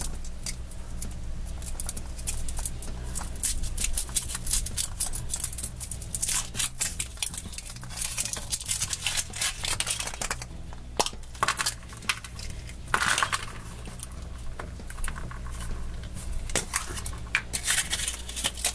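Foil wrapper crinkling and rustling as it is peeled off a chocolate surprise egg, then the chocolate shell cracking and the plastic toy capsule inside being handled and twisted open.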